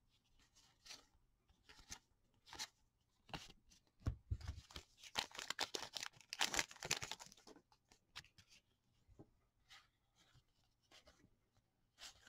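Trading cards flicked and slid past one another in the hands, a soft flick every second or so. About four seconds in comes a few seconds of loud crinkling as a stack of cards is pulled out of an opened pack wrapper.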